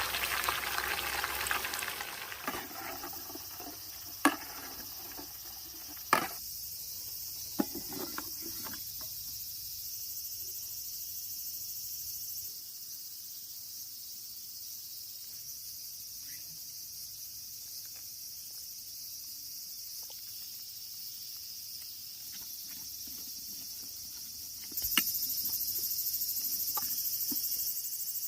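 A steady, high-pitched chorus of insects chirring, with a few sharp knocks; a broad hiss fades out over the first two seconds.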